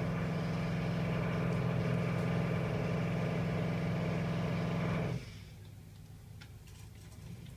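Jackhammer running steadily with a rapid, even pounding, then cutting off suddenly about five seconds in.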